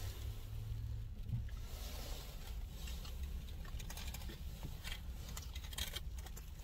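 Soft crackling and rustling of food being handled and chewed, with small clicks scattered through and thickest in the middle, over a low steady rumble in a car cabin.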